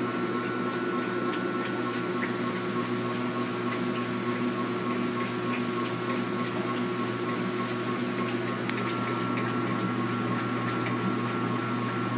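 Maytag LAT8714 top-load washing machine running in agitation: a steady motor hum with scattered light ticks, the distinct rattle that the owner hears during agitation.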